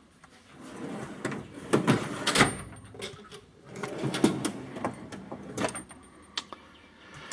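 Steel drawers of a Snap-on tool chest being slid shut and opened, with several sharp knocks and the clatter of tools shifting inside.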